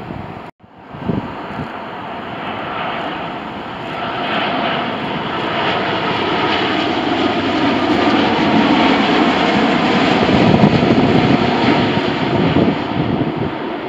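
Jet noise of an Air Canada Boeing 787 on final approach with its landing gear down. The noise swells as the airliner passes close, loudest around ten seconds in, and eases a little near the end. It follows a brief cut-out about half a second in.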